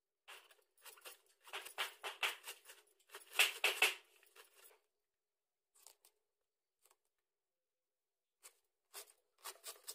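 Cabbage being shredded with a hand-held shredding blade: quick rasping strokes scraping through the leaves, in a fast run for the first half, then only a few scattered strokes near the end.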